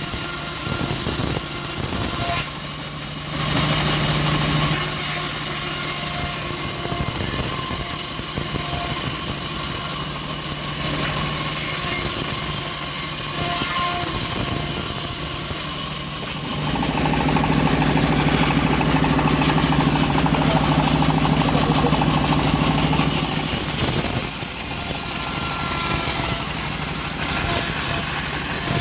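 Engine-driven homemade bandsaw mill running steadily while sawing teak, a steady engine hum under a high hissing whine. It grows louder and fuller for about six seconds past the middle, then settles back.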